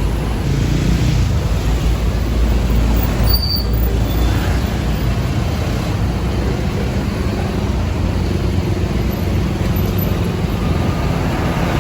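Tour bus diesel engine running with a steady low rumble, with a short high squeak about three seconds in.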